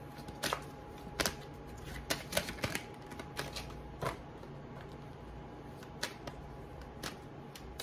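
Tarot cards being handled and shuffled, giving about ten light, irregular snapping clicks.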